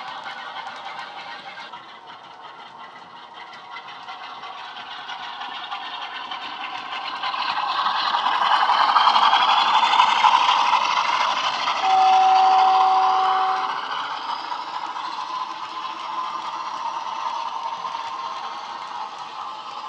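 Bachmann OO gauge Class 47 model's DCC sound decoder playing a recorded Class 47 diesel engine (Sulzer) through its onboard speaker as the locomotive runs past, growing louder as it comes close and easing off as it moves away, with the wheels rattling on the track. A horn sounds one steady note for about two seconds while the locomotive is close.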